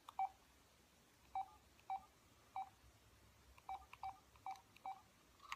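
Short electronic beeps from a smartphone's touchscreen keypad as it is tapped to place a call, about eight blips at uneven intervals.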